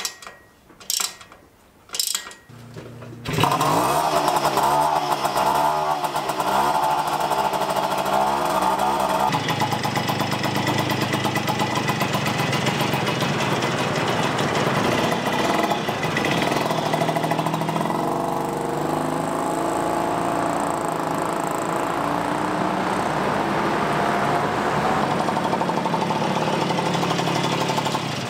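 A few sharp clicks, then about three seconds in a Puch Magnum's ZA50 50 cc two-stroke moped engine, fitted with a Metrakit cylinder and a high-compression head, starts and runs. Its revs rise and fall for the first few seconds, then it keeps running.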